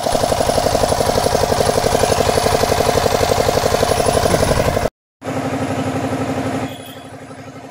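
An engine running steadily at idle, its firing heard as a fast, even pulse. The sound cuts out briefly about five seconds in, comes back, then drops to a lower level near the end.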